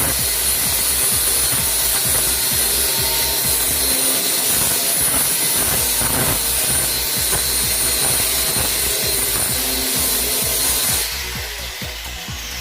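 An electric power tool runs steadily on wood with a high whine, then stops about a second before the end.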